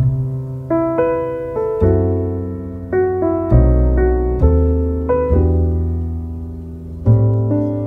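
Background music: a gentle piano piece, soft chords struck about once a second over a low bass.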